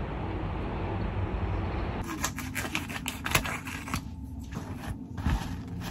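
An even hiss for the first two seconds, then irregular clicks and rustles of a plastic-wrapped pack of meat being handled and opened on a wooden cutting board.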